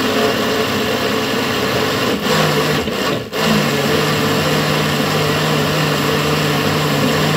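Countertop blender running, pureeing soaked red lentils in their soaking water into a thick batter. The sound dips briefly twice, around two and three seconds in, then runs steadily.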